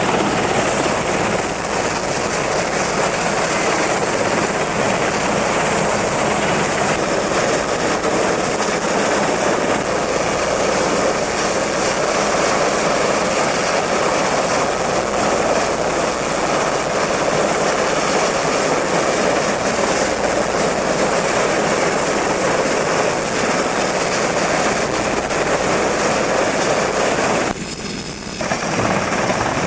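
Helicopter running close by with its rotor turning, a loud steady din of engine and rotor noise that dips briefly near the end.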